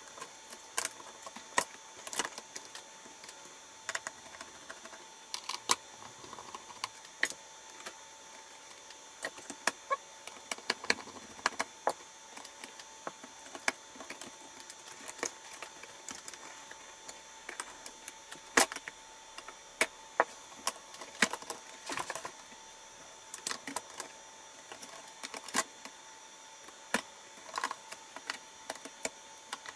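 Plastic laptop keyboard being pried up and worked loose from an HP laptop's top case: irregular sharp clicks, snaps and key rattles, a few louder taps among them.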